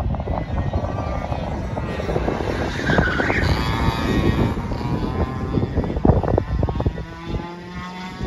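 Two-stroke racing kart engine driving past on the track. Its pitch rises as it accelerates about three seconds in, then falls away as the kart goes off.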